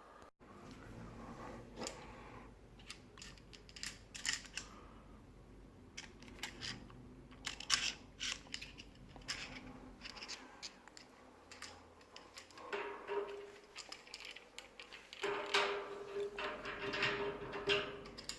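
Equipment being handled and assembled: a string of small clicks and light knocks, with squeaky scraping twice in the second half.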